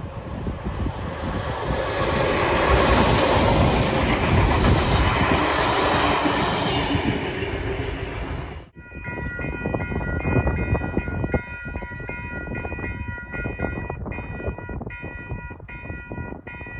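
A NSW 44 class diesel-electric locomotive, its ALCo V16 engine working, passes close by hauling heritage carriages, the engine and wheel noise swelling up and then fading. After an abrupt cut, a multi-tone train horn sounds from the distance for several seconds, in a few broken blasts, with wind rumble on the microphone.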